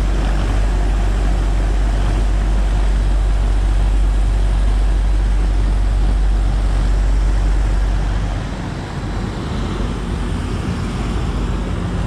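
Carrier Gemini 6-ton commercial heat pump outdoor unit running with a steady low hum and fan noise while its coil and lines are heavily frosted over and not defrosting, a fault the owner puts down to a bad defrost board or some other problem. The hum weakens and the level drops a little about eight seconds in.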